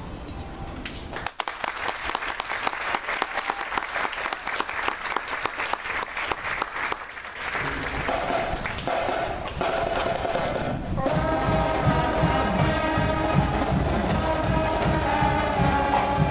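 Applause from many people clapping for about six seconds. Then a marching band starts up again: first a steady low drum beat, and a few seconds later brass joining in with sustained chords over it.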